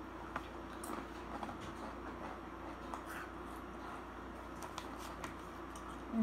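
Doritos tortilla chips being chewed: scattered faint crunches and crackles.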